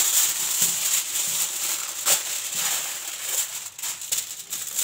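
Aluminium foil crinkling and rustling, with many small sharp crackles, as a sheet is pulled off the roll and smoothed over a metal roasting tray.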